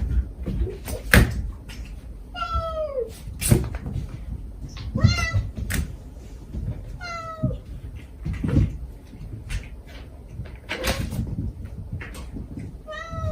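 Cat meowing: four short calls, each falling in pitch, spaced a few seconds apart, with scattered knocks and bumps around them.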